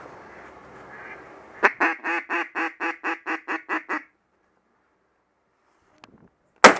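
Duck quacking in a fast, even run of about ten quacks, the falling-cadence series of a mallard hen or a hunter's duck call. It cuts off abruptly, and near the end a single loud shotgun shot cracks out.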